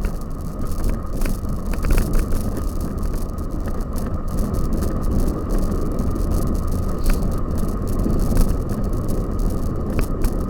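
Cyclocross bike being ridden over rough ground, its frame and parts rattling with scattered sharp clicks and knocks over a steady rumble of tyres and wind on the microphone.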